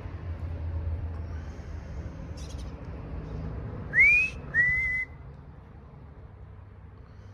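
Two short, loud whistled notes about half a second apart. The first slides up in pitch; the second rises and then holds. Behind them is a steady low hum.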